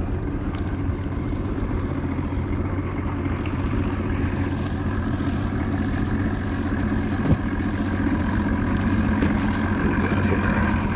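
60 hp OMC VRO two-stroke outboard motor idling steadily, with a single sharp click about seven seconds in.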